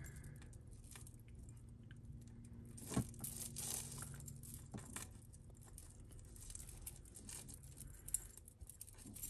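Tangled metal necklace chains being worked apart by hand: faint light clicks and rustling, with one sharper click about three seconds in.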